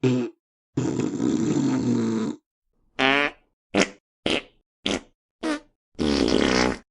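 A run of separate fart sound effects with short silences between them. A brief one comes first, then a long noisy one of about a second and a half, then five short pitched toots, and a longer pitched one near the end.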